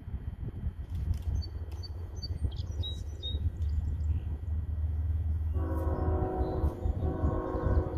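Locomotive air horn sounding two long blasts, the first starting about five and a half seconds in. Birds chirp earlier, over a steady low rumble.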